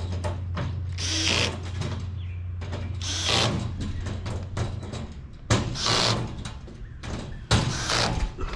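Power drill running in four short spurts about two seconds apart, driving the bolts that hold together a galvanized steel raised garden bed.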